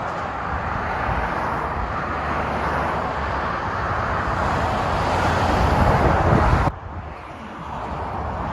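Motorway traffic with lorries passing at speed: a steady roar of tyres and engines that swells as a vehicle comes close, then cuts off suddenly about two-thirds of the way in, leaving a fainter traffic roar.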